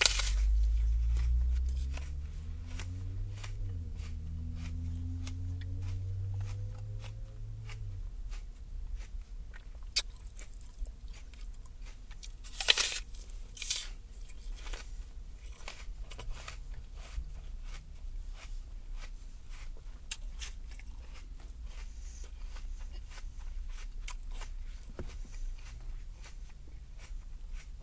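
A person biting and chewing a crisp apple at close range: wet crunches and chewing clicks, with several louder bites about ten to fourteen seconds in. A low droning hum, its pitch rising slowly, runs under the first eight seconds.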